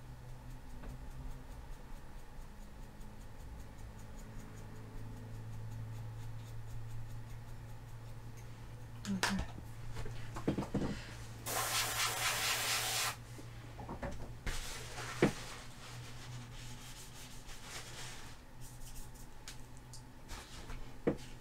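A brush scrubbing fresh paint on a plastic scale aircraft model to chip it back through a hairspray layer, with knocks from the model being handled. A loud rustle lasting under two seconds comes about halfway through, and a sharp knock near the end.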